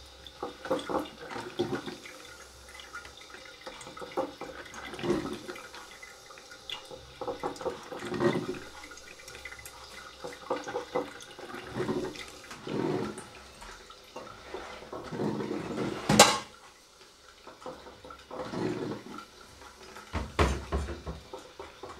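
Water heating in a glass electric kettle, rumbling and bubbling in irregular surges every second or two as it nears the boil. One sharp click about sixteen seconds in, and a low thump near the end.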